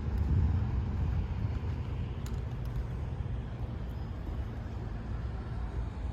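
Steady low rumble with a faint hiss and no distinct events.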